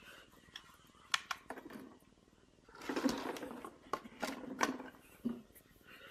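Scattered light clicks, taps and rustling as pieces of dried homemade turkey jerky dog treats are handled for weighing on a kitchen scale.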